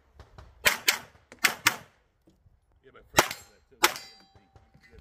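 Semi-automatic pistol firing six shots: two quick pairs in the first two seconds, then after a pause two more shots a little over half a second apart, with a faint ringing tone after the last shot.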